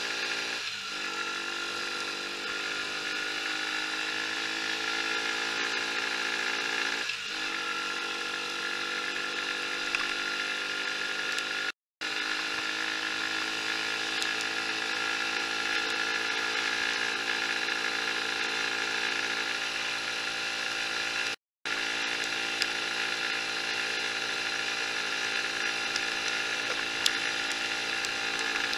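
A Mash Fifty's 50 cc single-cylinder engine running under way, heard from the rider's seat. It pulls up through the gears, the pitch climbing, dipping briefly at two upshifts about one and seven seconds in, then holds a steady drone at cruising speed. The sound cuts out for a moment twice, about 12 and 21 seconds in.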